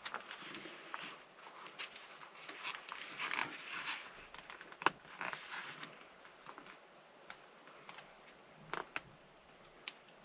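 Hands working rubber O-rings over a leather shift boot on the gear lever: soft rustling and rubbing with scattered small clicks, one sharper click about five seconds in.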